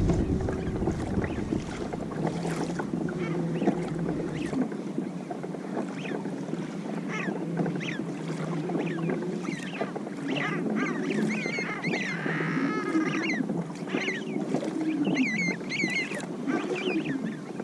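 Birds calling repeatedly over the steady wash of water and wind around a moving kayak: short, high, curving calls through the second half, with one longer call about twelve seconds in.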